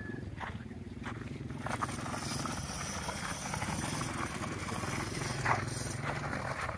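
Small electric ATV driven by a car alternator converted into a motor, running with a low steady hum while its tyres crunch over gravel, with a few sharp ticks from stones.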